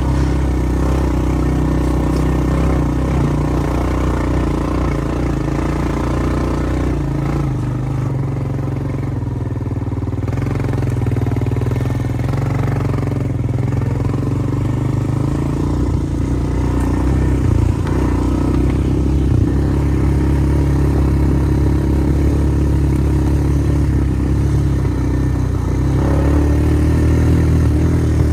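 A vehicle engine running steadily, with small changes in speed and a couple of knocks or rattles partway through.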